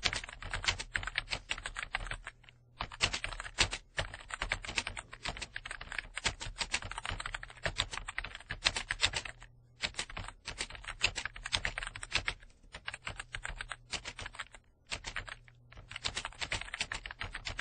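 Computer keyboard typing: rapid runs of key clicks broken by brief pauses, over a faint steady low hum.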